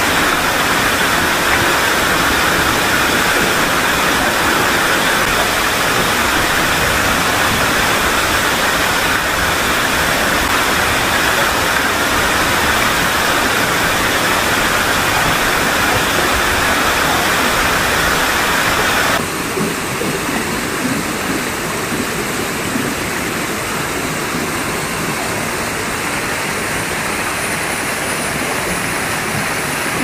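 Waterfall pouring into a rock pool: a loud, steady rush of falling water. About 19 seconds in it cuts abruptly to the quieter, softer rush of a shallow stream running over rocks.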